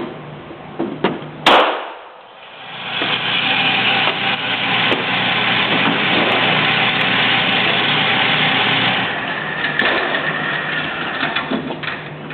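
A single shot from a Glock 22 .40 S&W pistol about a second and a half in, followed by a steady rushing noise that swells up over a couple of seconds and eases off near the end.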